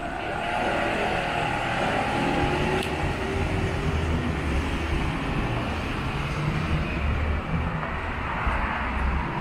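Road traffic on a city street: vehicles passing close by, with a steady low engine rumble.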